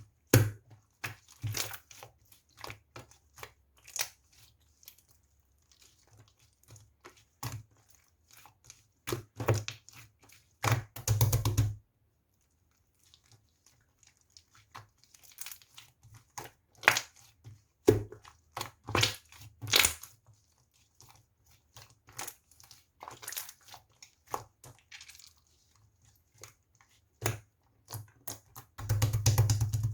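Intermittent crinkling and crunching handling sounds in short irregular bursts, with a brief pause about twelve seconds in.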